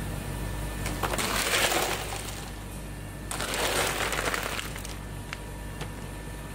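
A plastic scoop digging twice into a heap of solid tube ice, the ice tubes crunching and clinking against each other and the scoop. A few single clicks of ice follow, over a steady low hum.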